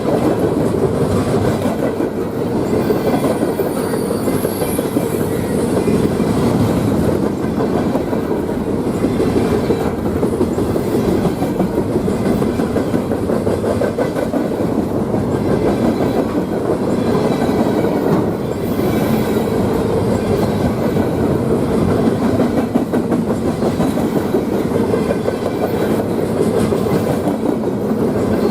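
Freight train rolling past at steady speed: a continuous rumble of railcars with constant fine clicking of wheels over the rail.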